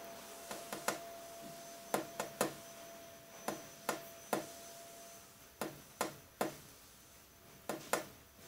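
A series of sharp clicks, mostly in quick groups of three repeating about every two seconds, over a faint hiss and a thin steady tone that stops about halfway.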